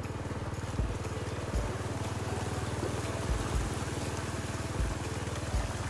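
An engine running steadily with a low, even pulse, and a few dull thumps about a second or so apart.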